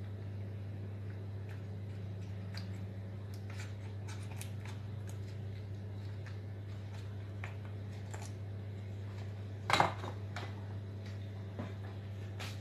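Light taps and clicks of kitchen handling at a glass baking dish as béchamel sauce is dotted over fried potatoes, with one sharper knock about ten seconds in, over a steady low hum.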